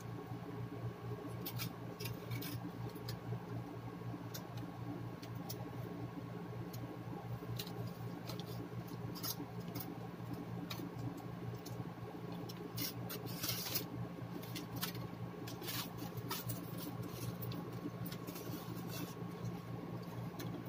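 Aluminium foil crinkling as a wrapped sandwich is handled, in scattered short crackles, over a steady low electrical hum.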